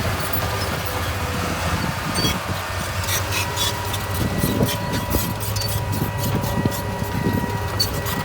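Heavy diesel earthmoving machine running steadily at work, a low engine drone under a thin steady whine, with frequent short clicks and knocks through the middle.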